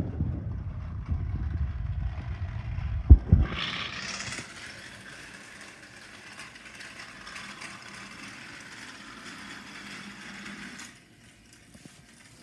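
Plarail Hiro battery-powered toy locomotive running on plastic track, a steady motor whir with light clatter that cuts off shortly before the end. For the first few seconds a low rumble covers it, with a sharp knock about three seconds in.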